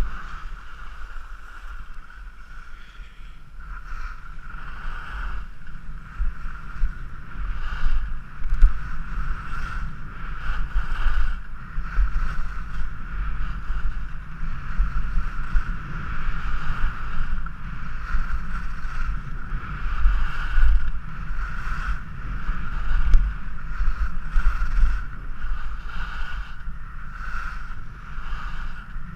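Wind buffeting the microphone of a camera worn by a downhill skier, with skis scraping over hard-packed groomed snow. The noise swells and fades about every second as the skier turns.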